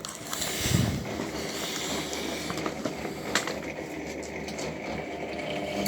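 Washing machine running with a steady low hum, and a few light clicks and knocks.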